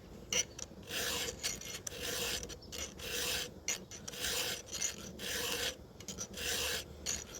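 Round file rasping across a chainsaw chain's cutter teeth in even strokes, about one a second.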